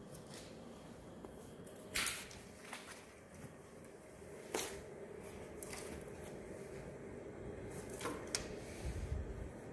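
A faint steady hum with a few short, sharp rustles and clicks, the loudest about two seconds in and a quick pair near the end.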